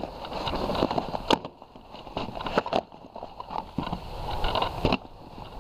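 Rustling and irregular knocks of gear being handled in an inflatable canoe, with several sharp knocks, over the splash and gurgle of shallow moving water.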